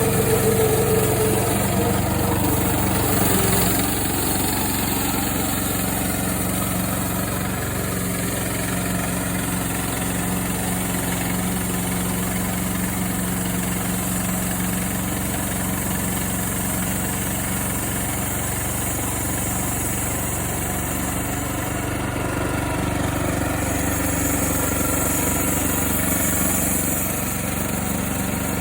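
Portable bandsaw mill's engine running at a steady speed, a little louder for the first few seconds and then easing about four seconds in.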